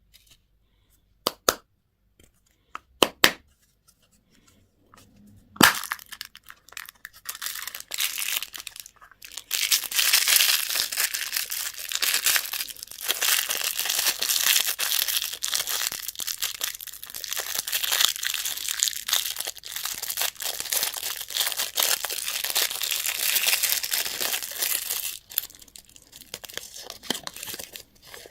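A few sharp clicks, then a long stretch of crinkling and tearing as a candy wrapper is pulled open, easing off near the end.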